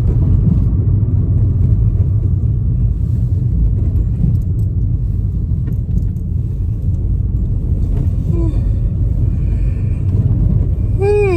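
Steady low rumble of a car in motion, heard from inside the cabin. Near the end a person starts a loud, drawn-out yawn with a voiced, wavering pitch.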